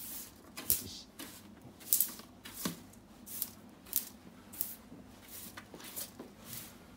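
Broom sweeping small paper squares across a wooden floor into a plastic dustpan, in short strokes about two a second, with one sharper snap about three seconds in.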